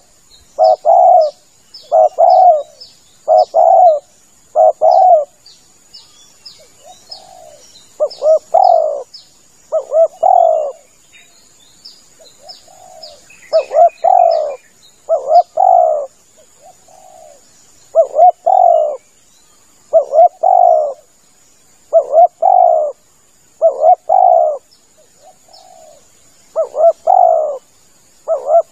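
Spotted dove cooing loudly in repeated phrases, each a group of two or three deep coos with short pauses between. Small birds chirp faintly in the background over a faint steady high-pitched tone.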